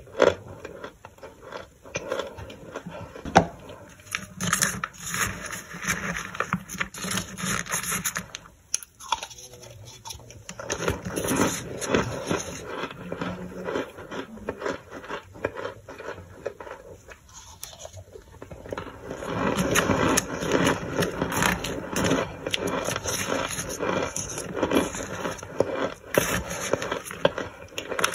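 A plastic spoon scraping through and crushing chunks of toasted starch in a plastic tub: a dense crunching and crackling, with a couple of brief lulls, busiest in the last third.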